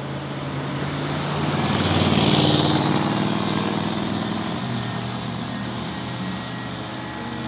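1962 Chevrolet Impala Super Sport's rebuilt 327 four-barrel V8 with dual exhaust driving past: the engine and tyre noise build, peak about two seconds in as the car passes, then fade as it pulls away.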